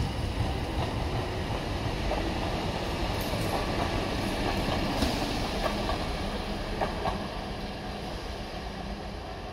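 Tyne and Wear Metrocar electric train running along the track and away, its wheels rumbling steadily with a few sharp clicks a few seconds in. The sound fades as the train draws off near the end.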